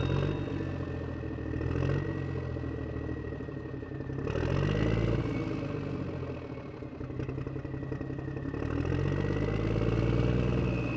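A vehicle engine running, its pitch rising and falling several times as it revs, with a faint steady high whine above it.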